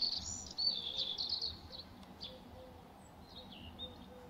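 Small birds chirping and twittering: a quick run of high, warbling chirps in the first second and a half, then a few fainter chirps later on.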